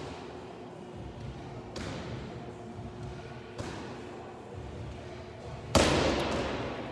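Medicine-ball wall-ball throws: a thud about every two seconds as the ball is thrown and caught, three times. About six seconds in comes a louder thud as the ball is dropped onto the rubber gym floor, fading over about a second.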